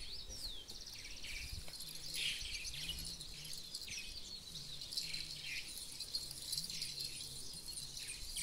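Birds chirping and calling in a busy chorus of short chirps, with a rising-and-falling whistle and a fast trill in the first second, over a faint low hum.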